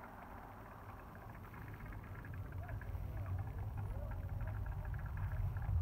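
Distant low rumble of the Space Launch System rocket's launch, arriving well after liftoff and building steadily from about two seconds in.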